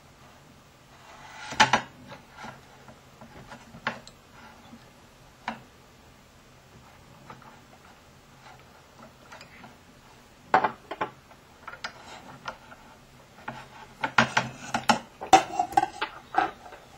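Metal and plastic parts of a softbox ball head mount clicking and clinking as it is handled, with a few scattered clicks and a dense run of clinks near the end.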